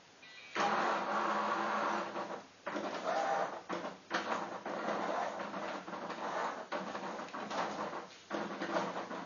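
Motor and magnet carriage under the board of a Milton Bradley Milton self-moving chess computer running in several stretches with short pauses as it moves a piece by itself, a sound like a small printer's mechanism.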